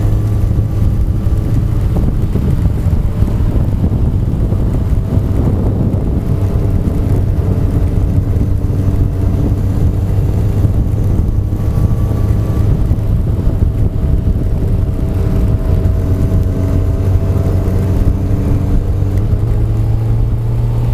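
Honda CBR1100XX's inline-four engine droning at a steady cruise, its pitch edging up slightly near the end, with wind rushing over the microphone.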